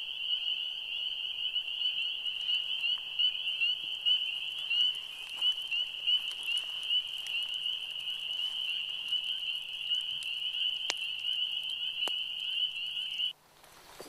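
Chorus of pond frogs calling, a dense, steady high-pitched trilling of many overlapping calls that cuts off abruptly near the end.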